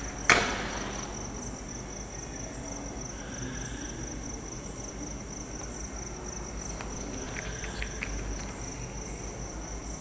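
A matchstick struck and flaring about a third of a second in, a sharp scrape with a short fizz. Behind it, crickets chirp steadily with regular high chirps about one and a half times a second over a continuous high tone.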